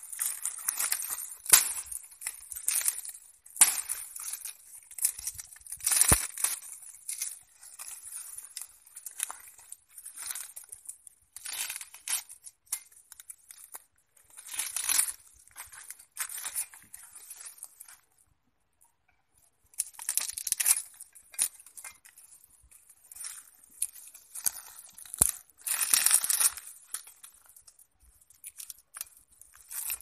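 A large knife shaving and splitting a bamboo pole: irregular bursts of tearing and scraping, with a few sharp knocks of the blade on the cane.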